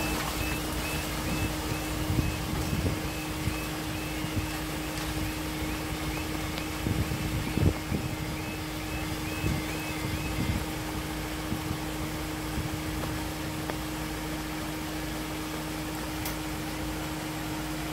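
Level-crossing audible alarm sounding short high electronic tones about twice a second while the half barriers lower, stopping about ten seconds in once the barriers are down. A steady low hum and wet-road traffic noise run underneath, with a single thump near the middle.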